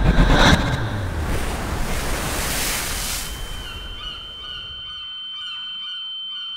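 Surf washing over rocks, swelling and then fading away; about three seconds in a steady high-pitched ringing tone comes in, with faint bird calls repeating over it.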